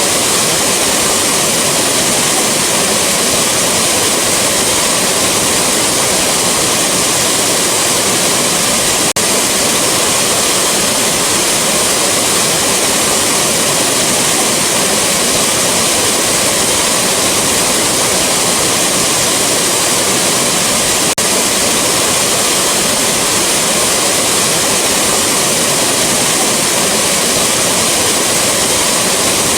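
Rushing waterfall: a loud, steady rush of falling water.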